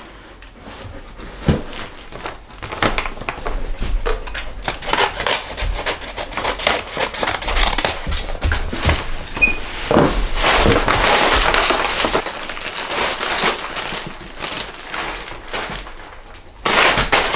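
Scissors cutting through a paper mailing envelope, with the paper crinkling and rustling as it is cut open and handled.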